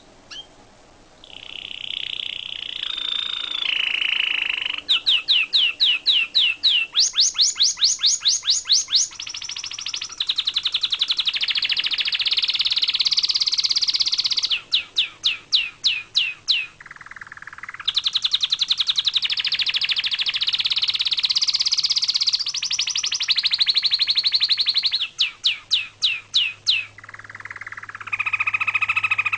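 Car alarm siren cycling through electronic bird-like sounds: warbling tones, runs of quick falling chirps at about four a second, and rapid trills. The pattern switches every few seconds, and the sequence repeats.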